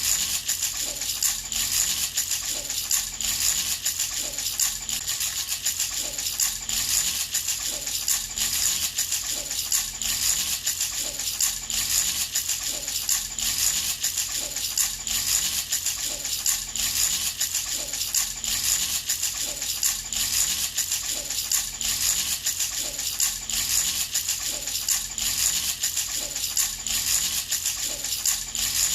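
Baby's handheld rattle shaken steadily in an even rhythm, its small beads or pellets rattling without a break.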